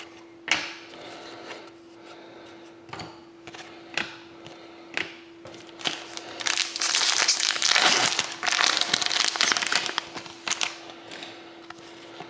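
Foil trading-card pack wrapper torn open and crinkled, densest for a few seconds past the middle, among scattered sharp clicks of cards being handled.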